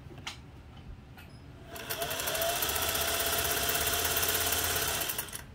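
Singer 401A sewing machine sewing a test seam for about three and a half seconds: its motor whine rises as it comes up to speed under rapid, even needle strokes, then it stops sharply near the end. Two light clicks come before it starts. The seam is run to check the upper thread tension being adjusted.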